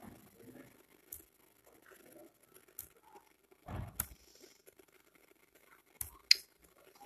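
Scattered clicks and taps from a laptop being operated by hand as a number is typed in, about five over several seconds, the loudest a dull tap followed by a sharp click near the middle.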